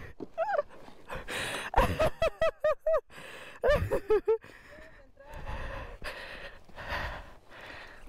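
Several runs of short, high yelping animal calls, each rising then falling in pitch, with a few calls per second. From about five seconds in comes a few seconds of breathy, pitchless noise.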